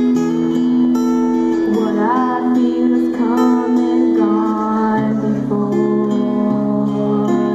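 Acoustic guitar played as accompaniment, with a girl's solo singing voice coming in about two seconds in and carrying on in phrases over it.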